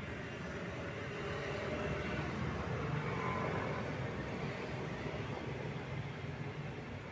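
Background road traffic: a steady hum and rush that swells about two to four seconds in as a vehicle passes, then eases off.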